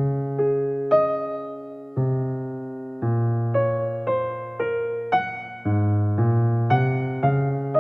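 Background music: electric piano playing a slow melody over chords, with a new note or chord struck every half second to a second, each fading before the next.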